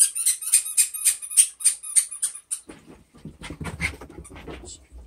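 A dog in a post-bath frenzy: a quick run of short, sharp huffing sounds, about four a second, then scuffling and thumps as it rubs and bumps along the carpet and furniture.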